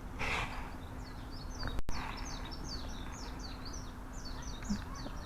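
Small songbirds chirping in quick, repeated high notes over a steady low background noise, with a brief noise near the start and a single click just under two seconds in.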